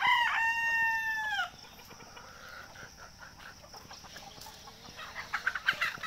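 A desi rooster crowing. The long held note ends with a falling drop about a second and a half in. Hens cluck softly afterwards, and the clucking gets busier near the end.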